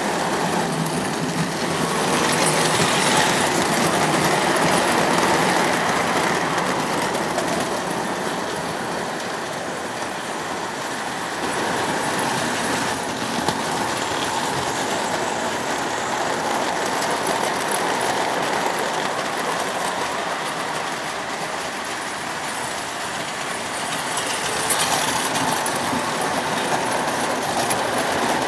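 O gauge model trains running on the layout's track: a steady rumble of wheels on the rails, growing louder twice as a train passes close.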